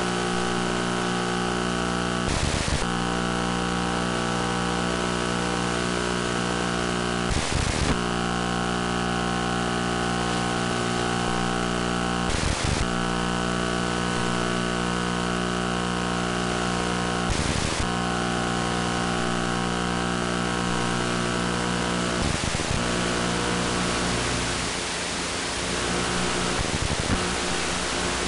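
Onboard audio of an electric FPV flying wing in powered flight: a steady hiss with a constant multi-tone buzzing hum, broken by a short crackle about every five seconds. Near the end the hum wavers and turns rougher.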